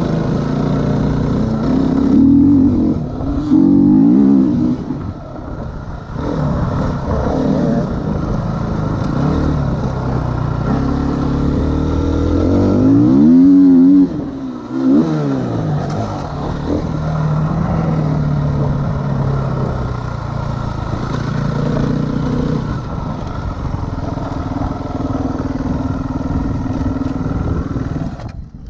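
Dirt bike engine under way, revving up and down through the gears. The loudest rev comes about 13 seconds in, a sharp rise and fall in pitch, and the engine runs lower and steadier near the end as the bike slows.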